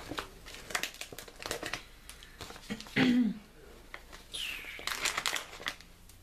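Paper crinkling and rustling as a painted print sheet is handled and lifted, with scattered small clicks and taps. About three seconds in comes a short, loud voiced sound that bends in pitch.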